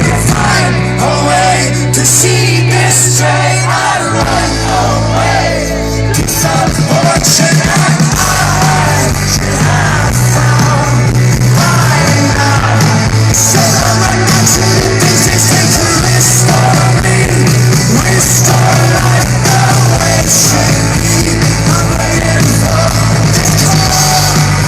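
Rock band playing live and loud, with a strong, steady bass and a lead singer belting the vocal line over the band.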